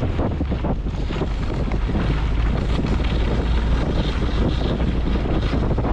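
Heavy wind buffeting on the microphone of a moving camera, over a steady low rumble.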